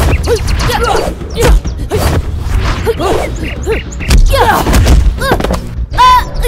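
Rapid run of staged fight sound effects: punches and kicks landing as sharp whacks and heavy thuds, roughly two a second.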